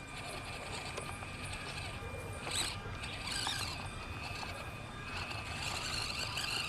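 Axial SCX24 micro RC crawler's small electric motor and gears whirring as it struggles to climb a dry hill, with one brief louder noise about two and a half seconds in.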